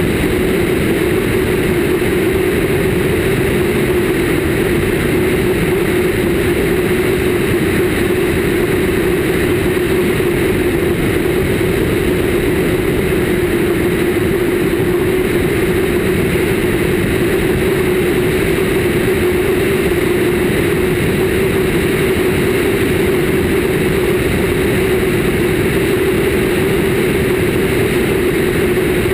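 Cessna 152's four-cylinder Lycoming O-235 engine and propeller running steadily in level flight, picked up outside the cabin with air rushing past the microphone.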